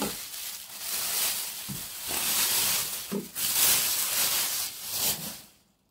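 Plastic film and bubble wrap being unwrapped by hand, crinkling and rustling loudly in uneven bursts, stopping shortly before the end.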